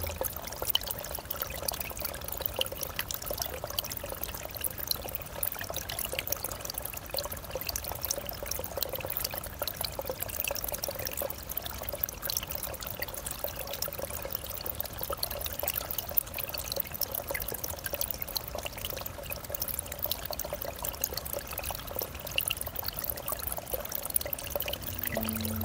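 Small forest stream trickling shallowly over wet fallen leaves and mud, a steady trickle dotted with many tiny drips and splashes.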